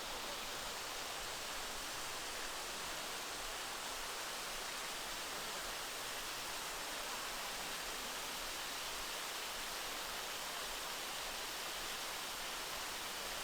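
Steady rush of flowing water from the creek and its falls, an even hiss that does not change.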